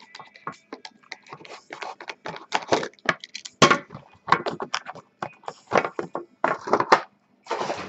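Trading cards and their packaging being handled: a quick, irregular run of short rustles, clicks and scrapes.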